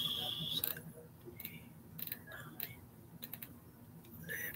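Faint, irregular clicks and ticks, a few scattered through the few seconds.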